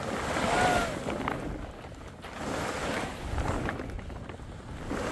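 Large plastic tarpaulin rustling and swishing as it is dragged and gathered over the ground, in uneven swells.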